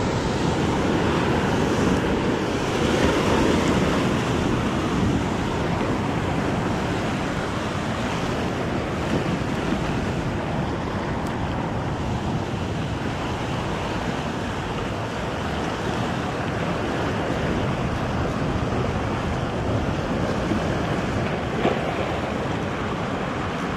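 Rough sea surf breaking and washing over a rocky shore in a steady rush, with wind buffeting the microphone.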